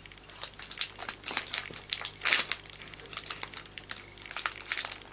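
Plastic wrapper of a coconut bar crinkling as it is handled and pulled open, a run of irregular crackles with a louder burst about halfway through.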